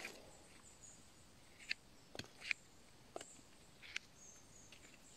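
Quiet forest ambience with about five faint, short clicks and rustles as a bolete mushroom is handled and sliced with a small pocket knife.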